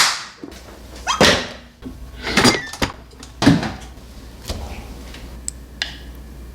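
Dishes and utensils handled at a meal table: four knocks and scrapes about a second apart, then a few light clicks.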